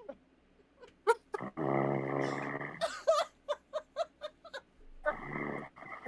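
A sleeping dog snoring: two long, low snores, with a quick run of short, high whimpers between them.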